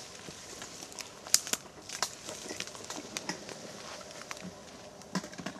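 Irregular rustling and crackling of leaves and twigs as people move in woodland undergrowth, with a few sharp clicks scattered through it.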